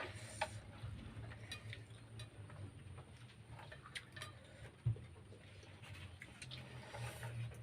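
A person chewing and eating, with scattered small wet mouth clicks over a steady low hum. There is a single soft thump about five seconds in.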